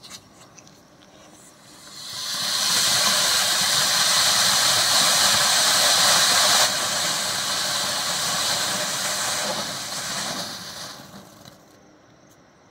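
Five-nozzle ground fountain firework (Starvell Magical Peacock, silver) spraying sparks with a loud steady hiss. After a few faint crackles, the hiss builds over about a second, eases slightly midway and fades out near the end as the fountain burns out.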